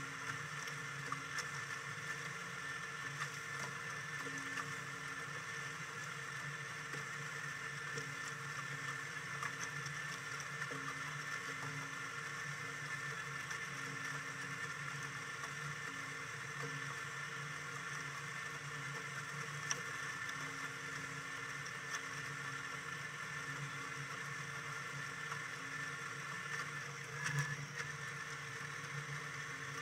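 A boat's motor running steadily as it cruises at low speed, with water noise underneath and a short louder noise near the end.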